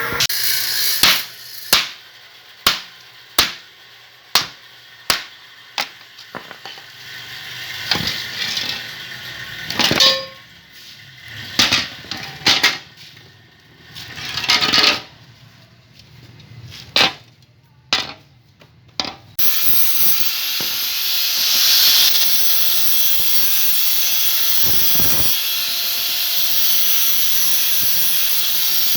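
A series of sharp knocks like hammering, evenly spaced at first and then irregular. About two-thirds of the way in they give way to a steady whirring machine noise.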